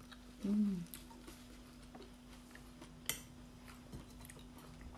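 A person eating a raw oyster: a short closed-mouth "mm" about half a second in, then faint chewing and wet mouth clicks, with one sharper click about three seconds in. A faint steady hum sits underneath.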